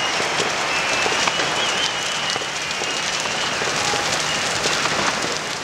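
Large wooden falla structure burning, a dense steady crackling and popping of the fire with a thin high tone coming and going.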